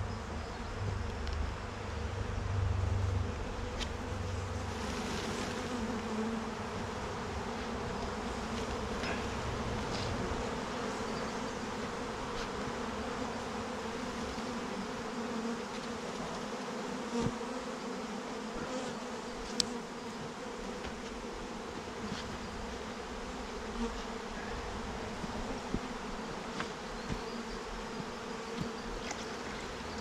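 Wild honeybee swarm buzzing as it is hived into a box: a dense, steady hum, with a low rumble in the first few seconds and a few short knocks.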